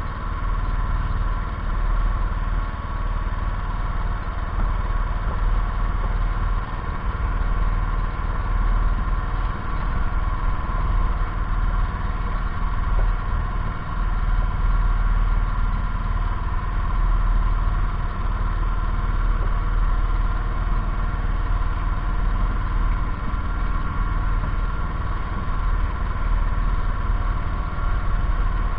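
A small engine running steadily at an even speed, with no change in pitch or load.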